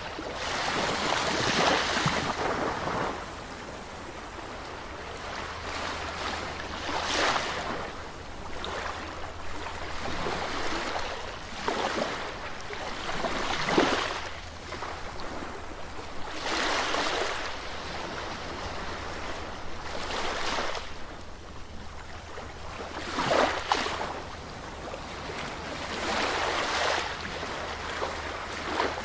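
Ocean surf: waves breaking and washing up a beach, a fresh swell of rushing water every few seconds.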